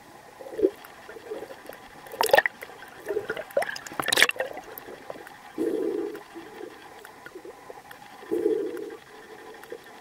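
Water sloshing and churning picked up by an underwater camera as a swimmer strokes hard at the surface, with muffled swells every few seconds and two sharper splashes about two and four seconds in.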